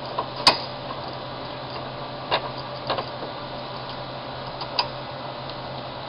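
A few sharp metal clicks and taps from handling the tool and a small screw, with the loudest about half a second in. A steady low hum runs underneath.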